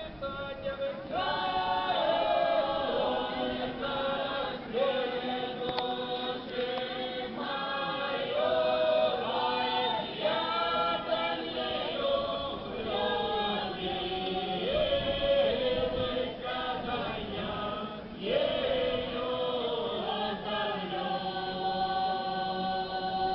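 Semeiskie Old Believer folk singers singing a round-dance song unaccompanied in several voices, with long drawn-out notes and short breaks between phrases.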